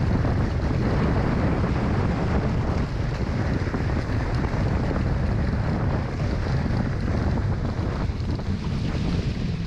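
Strong wind buffeting the onboard camera's microphone, a steady low rumble, with water rushing and splashing past a Hobie 16 catamaran sailing fast.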